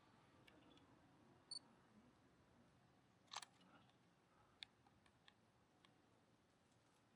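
Near silence: faint outdoor quiet with a few brief, faint high chirps and ticks.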